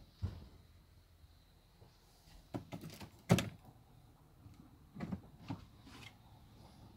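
Caravan overhead locker doors being opened and shut: clicks of the push-button catches and knocks of the doors, with the loudest sharp bang about a third of the way in and two softer knocks near the end.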